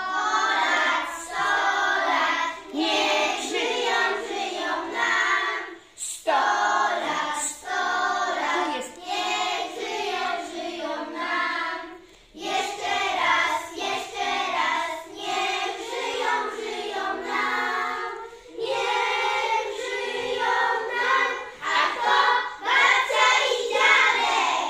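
A group of young children singing a song together in unison, with no instruments heard. They sing in phrases broken by short pauses about every six seconds.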